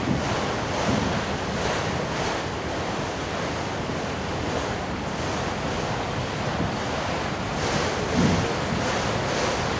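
Autorack freight cars rolling past: a steady rush of steel wheels on rail, with a clatter that recurs several times, strongest near the end.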